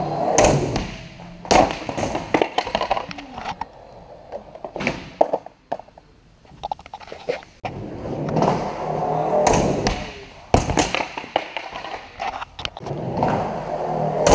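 Skateboard wheels rolling over a smooth concrete floor, swelling and fading as the rider picks up speed. Several sharp clacks and thuds of the board striking the ground come between the rolls, echoing in a large hall.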